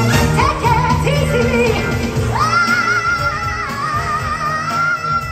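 Live soul band with a female lead singer performing: the full band comes in at once, loud, with electric guitars, drums, keyboard, trombone and trumpet. Short vocal phrases lead into a long held high note with vibrato from about two seconds in.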